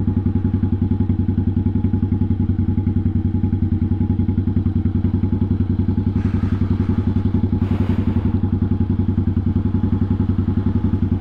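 1986 Honda Shadow 700 (VT700C) V-twin idling steadily with an even, rapid pulsing beat and no revving. Two brief hissing whooshes come about six and eight seconds in.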